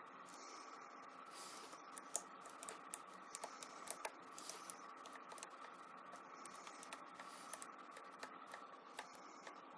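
Faint, irregular metallic clicking and scraping of a lock pick and tension wrench working the pin stack inside an ABUS 83/45 padlock's cylinder, the picker probing for the last pin still unset.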